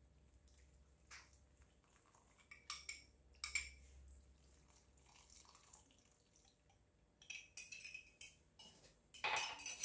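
Faint clinks of a metal spoon against a small drinking glass as orange flower water is poured from it into a terracotta dish, two light clinks a few seconds in, then a scatter of small clicks and a louder brief clatter near the end.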